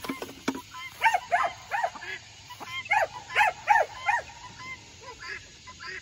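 Short, pitched animal calls repeated about three times a second, in two runs of four and five calls, then fainter scattered calls.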